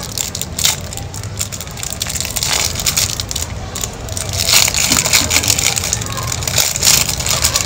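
Clear plastic candy wrapper crinkling and crackling as it is torn open and peeled off a marshmallow on a stick.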